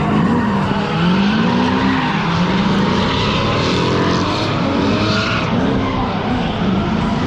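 Drift car engine revving up and down as it slides, with tyres squealing under a steady noisy roar.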